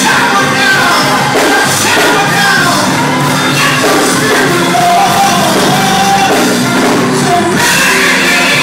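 Live gospel music: a band playing with a singer's voice over it and the congregation shouting and calling out.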